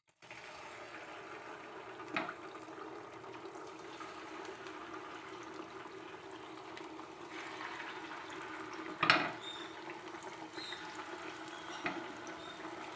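Coated chicken wing lollipops deep-frying in hot refined oil in a pan, with a steady sizzle as the pieces go in one by one. A few light knocks come through, the loudest about nine seconds in.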